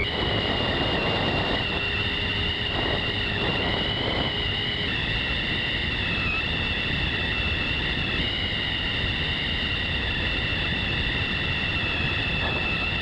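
Electric motor and propeller of a Skywalker model plane running at steady throttle, a high whine that wavers slightly, heard from the on-board camera with wind rushing over its microphone.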